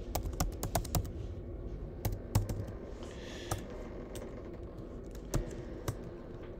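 Computer keyboard typing in a quick run of key clicks for about two and a half seconds, then a few separate clicks.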